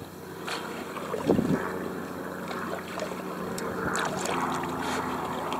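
Old Town Saranac 146 canoe under way on calm water, with water sounds along the hull and a few knocks, the loudest a low thump about a second in, over a steady low engine hum.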